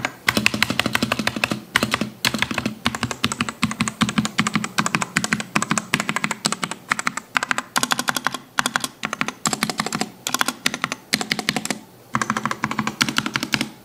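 Fast typing on a CIY Tester 68 custom mechanical keyboard fitted with Outemu Red linear switches: a rapid, continuous run of keystroke clicks broken by a few brief pauses.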